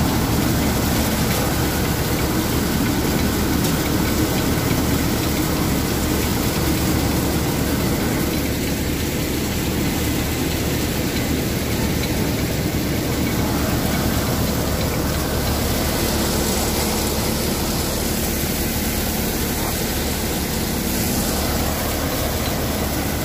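A paddy thresher driven by a John Deere 5055E diesel tractor, running steadily while it threshes rice, grain pouring from its chute into a metal bowl.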